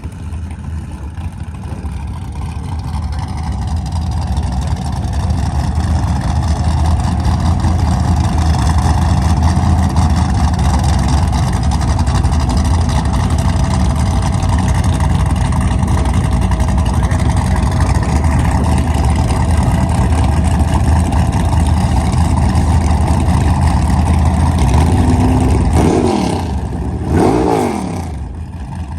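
Drag race car engine running hard during a no-prep pass, growing louder over the first few seconds and then holding steady. Near the end the pitch briefly swoops down and back up a couple of times.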